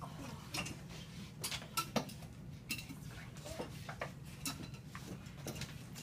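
Scattered clinks and knocks of small objects being handled, at irregular intervals over a steady low hum.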